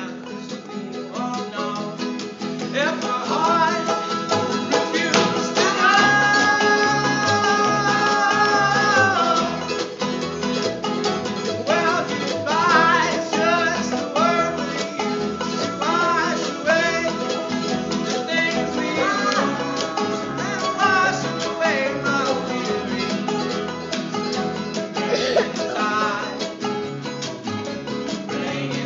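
A live band playing, led by plucked string instruments over a steady beat, with a few long held notes about six to nine seconds in.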